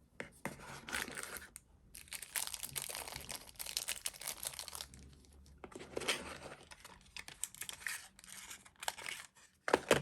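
Plastic packaging crinkling and tearing in irregular bursts as accessories are unwrapped, with a sharper, louder rustle near the end.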